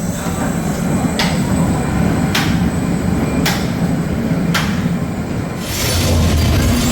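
Phoenix Rising inverted roller coaster train rolling along its track with a steady low rumble and a sharp click about once a second. Near the end a hissing rush rises.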